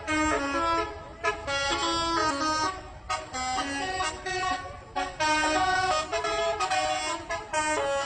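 Bus telolet horn, a set of air horns playing a quick tune of stepping high and low notes in phrases with short breaks, over a low rumble of traffic.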